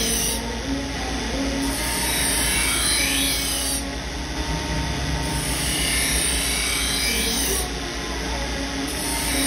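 Belt-driven grinding wheel running with a steady hum while a Damascus steel knife blade is ground against it in repeated passes, the high grinding hiss coming and going every two to three seconds.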